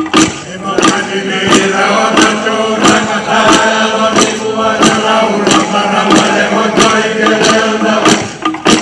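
A group of Fijian men chanting together in long held notes, with steady unison hand-clapping about three claps a second. The chant dies away near the end while the clapping carries on.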